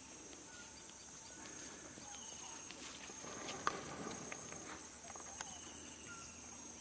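Steady high-pitched trilling of insects in the field, with a few faint clicks, the sharpest a little past halfway.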